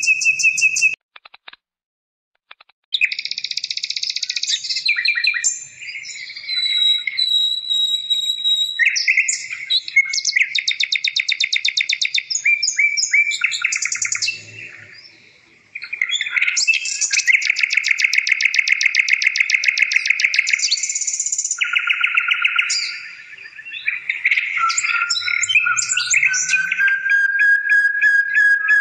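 A songbird singing almost without stop: long, rapid, high-pitched trills mixed with held whistled notes. It breaks off briefly about two seconds in and again around fifteen seconds.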